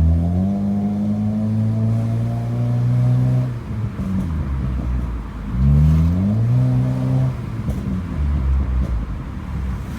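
Honda Civic FD's 1.8-litre R18 inline-four exhaust through a chambered muffler, revved up and held for about three seconds, dropping back, then revved again for under two seconds before settling to idle.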